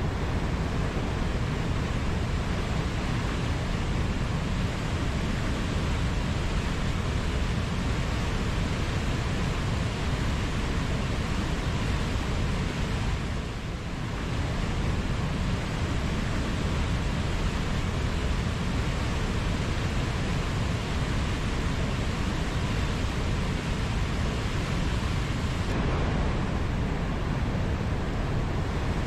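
Mountain waterfall: water pouring steadily, a dense, even rush heaviest in the low end, dipping slightly for a moment about halfway through.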